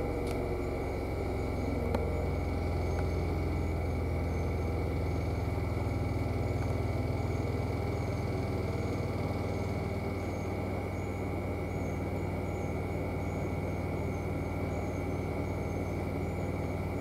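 Steady low hum inside a stopped electric railcar, with a few constant higher tones from its onboard equipment running while the train stands still.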